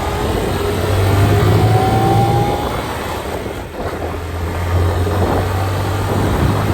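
RKS motorcycle engine running under way, its pitch climbing slowly as it pulls. The engine eases off briefly a little after halfway, then picks up again.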